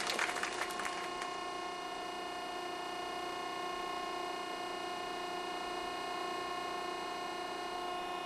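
Stair-lift motor whining steadily as it carries the chair up the staircase: one unchanging buzzing tone that cuts off with a click near the end.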